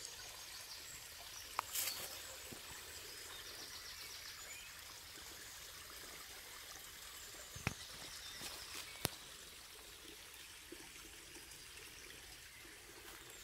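Shallow woodland brook trickling faintly. A couple of sharp clicks come about two seconds in, and two more around eight and nine seconds.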